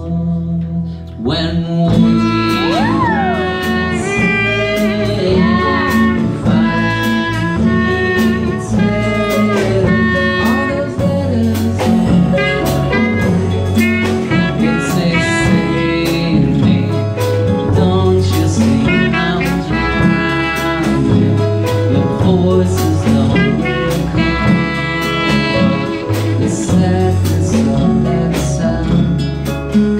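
Live jazz-blues band: a clarinet plays the lead melody, with a few sliding notes near the start, over drums keeping a steady beat and bass guitar.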